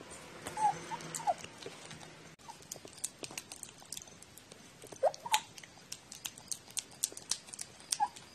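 A domestic cat eating soft food from a plate: a steady run of wet chewing and licking clicks, broken by short squeaky murmurs from the cat as it eats. There are a few of these murmurs in the first second and a half, two about five seconds in, and one near the end.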